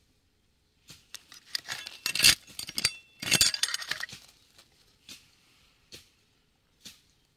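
Small loose stones clicking and crunching against each other as a gloved hand rakes through rocky gravel. The clicks come in a dense cluster starting about a second in, then die down to a few single clicks.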